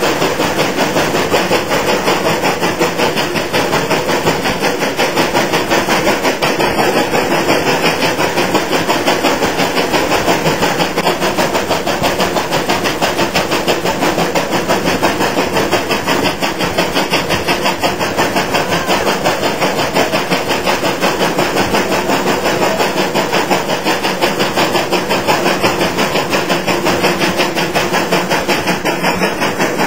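Oil-fired steam locomotive under way, its exhaust chuffing in a fast, steady rhythm.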